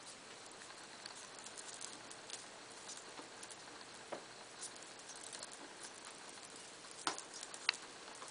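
Faint scratchy rustling and small clicks from African pygmy hedgehogs shifting about on fleece bedding while mating, over a steady hiss. Two sharper clicks come near the end.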